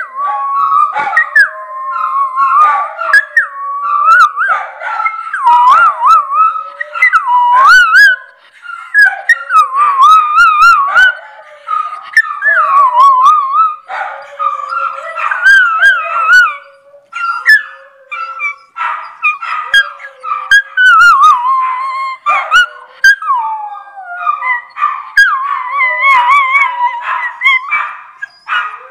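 A miniature schnauzer and other dogs howling together in long, wavering howls that overlap at different pitches, with many short, sharp sounds in between.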